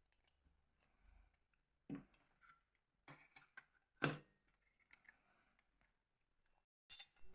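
A few short, separate clicks and taps of phone parts being handled and fitted together during reassembly, the loudest about four seconds in, with near silence between them.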